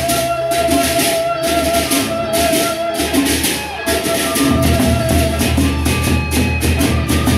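Lombok gendang beleq ensemble playing: rapid, even clashing of many pairs of bronze hand cymbals over deep beats on two large barrel drums, with a held ringing tone through it. The drumming thins out for a couple of seconds early on and then comes back in full.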